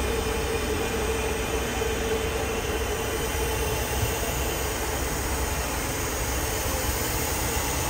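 Steady airliner cabin noise inside a Boeing 737 MAX 9 in flight: a constant low rumble and rushing air, with a steady hum underneath.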